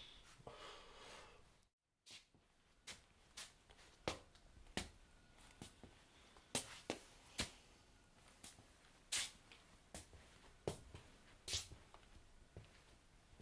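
Faint, irregular sharp clicks and taps, roughly one or two a second, after a short soft noise that cuts off about two seconds in.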